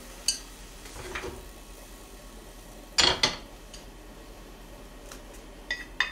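Chopsticks clicking against a metal pot as dried anchovies are dry-toasted and stirred in it: a quick run of clicks near the end. A louder clatter of utensils about three seconds in, with a few light clinks before it.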